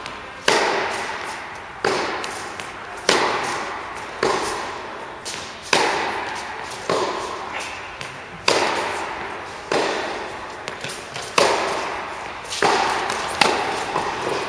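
Tennis rally: the ball struck by rackets back and forth, a sharp pop about every second and a bit, each ringing out in the echo of an indoor tennis hall, with softer knocks of the ball bouncing between.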